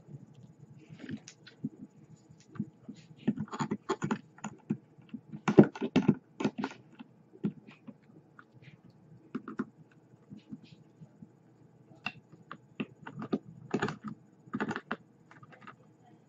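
Small metal hand tools clicking and tapping on a rebuildable atomizer's deck as coil leads are set and post screws tightened: irregular sharp clicks in clusters, loudest about five and a half seconds in.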